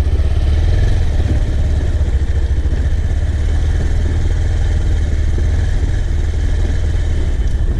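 Motor vehicle engine running steadily on the move: a constant low drone with road noise.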